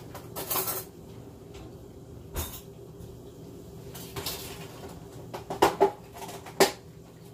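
Kitchen clatter of cookware and utensils being handled on a counter: a few rustling scrapes and knocks, then three sharp clinking knocks in the second half, two in quick succession and one just after, over a steady low hum.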